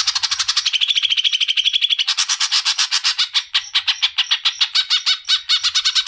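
Greater green leafbird (cucak ijo) singing a continuous, loud, fast chattering song of rapid high notes. The phrase changes about two seconds in.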